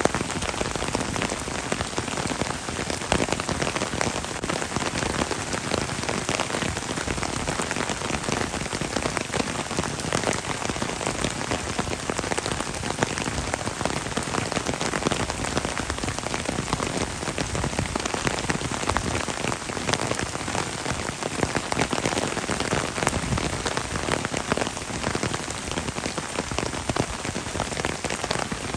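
Heavy rain falling steadily: a dense, even hiss of rain with the patter of countless individual drops.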